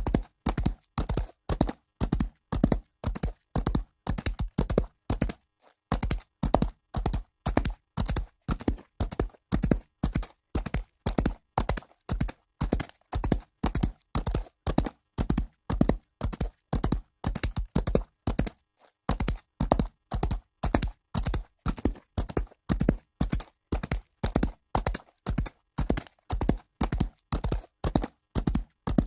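Horse hooves galloping on dirt: a steady run of sharp hoofbeats in repeating groups, broken by brief pauses about five and a half and nineteen seconds in.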